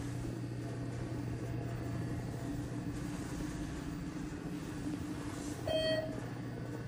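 ThyssenKrupp Signa4 elevator car running, with a steady low hum. Near the end the car's chime sounds once, short and clear.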